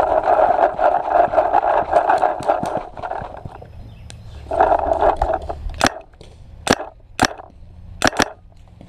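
A rough scraping rustle from movement and gear, then paintball markers firing: five sharp pops in the second half, the last two in quick succession.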